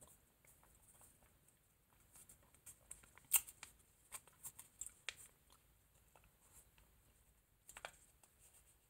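Faint scattered clicks and crinkles from a small foil drink sachet being handled and sipped from, a cluster from about two seconds in and a few more near the end.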